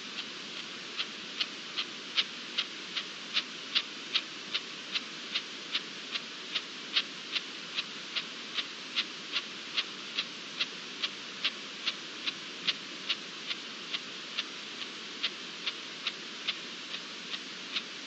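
Steady, even ticking, about two and a half sharp ticks a second, over a constant hiss. The ticks are faint at first and grow louder within the first two seconds.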